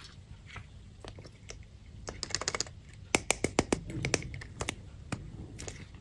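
Candy packaging being handled and opened by hand: runs of small, sharp crackling clicks in quick clusters, loudest about two and three seconds in.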